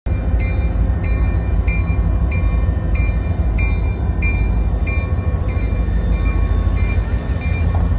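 Railroad grade-crossing bell ringing steadily at about one and a half strikes a second, over the low rumble of approaching diesel locomotives.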